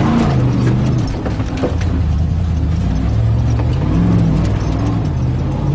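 Off-road 4x4's engine heard from inside the cab while driving a rough dirt track, its revs rising and falling, with cabin rattles and knocks over it.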